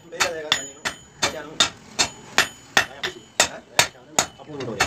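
Blacksmith's hand hammer striking metal on an anvil while forging a toka blade, a steady run of blows about two to three a second, each with a short metallic ring.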